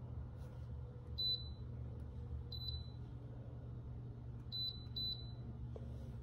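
Electric gooseneck kettle base beeping: four short, high electronic beeps, the last two close together, over a low steady hum.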